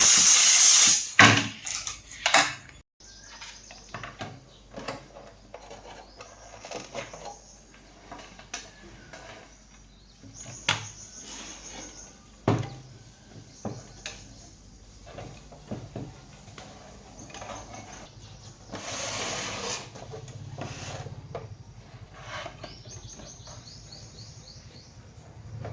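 Workbench handling sounds of small tools and parts: scattered clicks, knocks and clinks, with a loud hiss in the first second and another short hiss a little after two-thirds of the way through.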